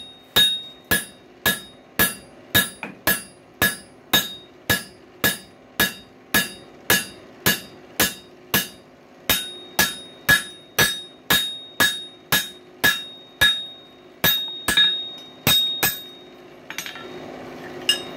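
Hand hammer striking hot coil-spring steel on an anvil, about two blows a second, each with a short metallic ring, while the shoulder of a screwdriver is forged. The blows stop near the end, followed by a couple of light clinks.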